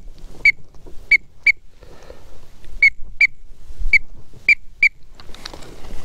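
Eight short, high whistled peeps at one pitch, mostly in quick pairs, with a run of three near the end.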